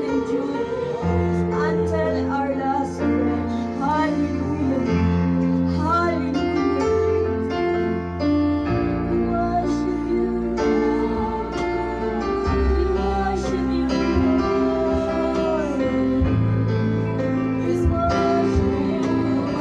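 Live worship band music: a singer's voice over sustained keyboard chords and held bass notes, with drums and cymbals from the kit.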